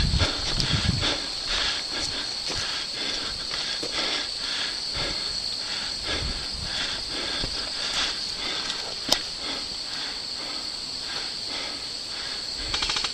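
Crickets chirring steadily in a high, pulsing drone, with a few low thumps of movement in the first second. One sharp click comes about nine seconds in.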